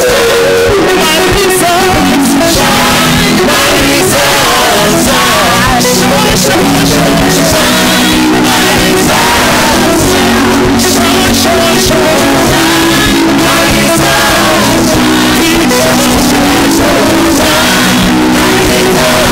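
Loud worship music with singing, playing without a break.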